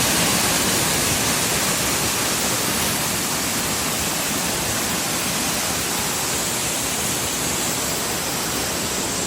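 Steady, even rush of falling water, like a waterfall.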